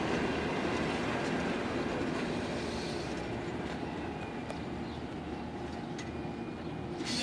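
Passenger coaches rolling slowly past on the rails as the train slows to a stop: a steady wheel rumble that gradually fades, with a few sharp clicks and a faint high wheel squeal in the middle.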